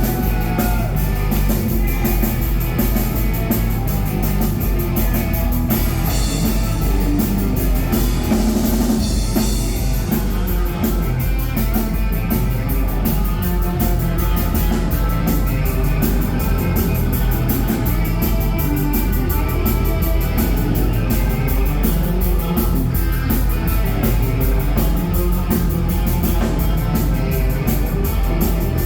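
Rock band playing live, an instrumental passage of drum kit and electric guitar with steady cymbal beats and a heavier cymbal wash about six seconds in.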